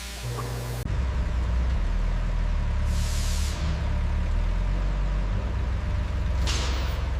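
Heavy vehicle's engine idling with a steady low rumble, with two short hisses of released air, about three seconds in and again near the end.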